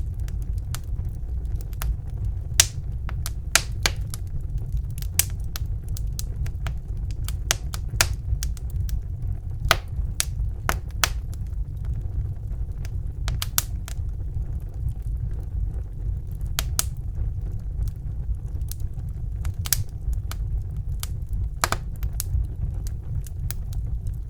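Fire burning in a fireplace, crackling: irregular sharp pops and snaps over a steady low rumble of the flames.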